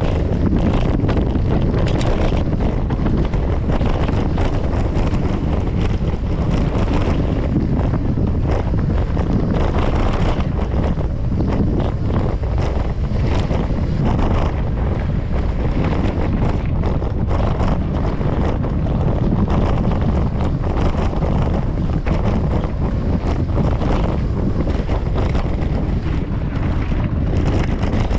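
Wind buffeting the microphone over the rumble of a mountain bike's knobby tyres on a gravel trail during a descent, with frequent short rattles and knocks from the bike over bumps.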